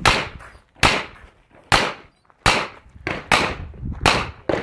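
Revolver fired in a steady string of loud shots, roughly one every 0.8 seconds, each with a short echo.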